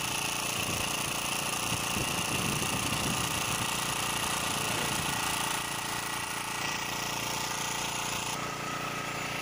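Small generator engine running steadily, powering an electric eel-fishing shocker.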